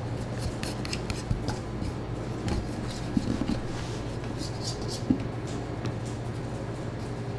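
Light taps, clicks and scrapes of an aluminium bowl and flour sieve being handled on a floured work surface as dough is turned out, over a steady low hum.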